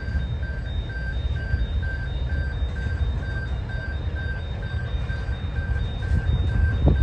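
Railway level crossing warning bell ringing in quick, even strokes, about three a second, over a steady low rumble.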